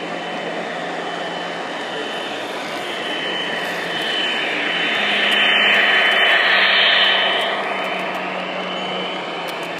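HO scale model train, diesel locomotives hauling passenger cars, rolling along its track close by. It swells as the locomotives pass, loudest about five to seven seconds in, then eases off.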